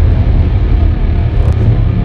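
Loud, deep, steady rumble, with a brief click about one and a half seconds in.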